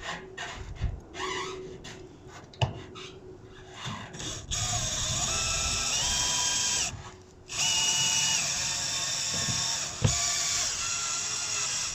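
Handheld power tool motor whining in two runs, its speed stepping up and down under the trigger, after a few seconds of light knocks and handling of metal.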